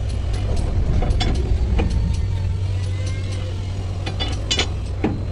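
Scattered metal clicks and taps as parts are handled and fitted on a truck suspension bell crank, with a cluster of them about four to five seconds in, over a steady low rumble.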